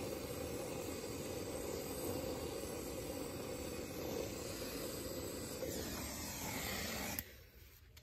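Oxy-fuel brazing torch flame running steadily with a low rushing hiss, turning hissier near the end, then cutting off suddenly about seven seconds in as the torch is shut off.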